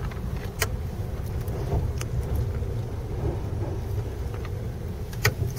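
Steady low engine and road rumble heard from inside the cabin of a moving Rolls-Royce, with a few sharp clicks; the loudest click comes about five seconds in.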